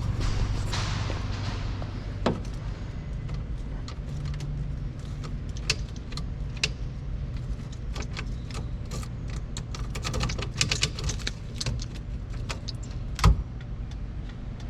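A vehicle engine idling steadily, with scattered small clicks and rattles over it and one sharp knock about thirteen seconds in.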